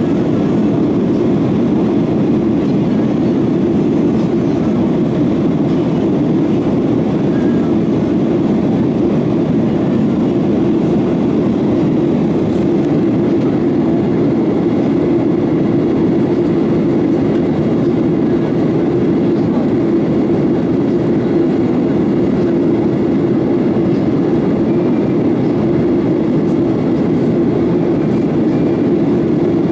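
Boeing 737-900ER's CFM56-7B jet engines running, a steady, even rush of noise with no change in pitch or level.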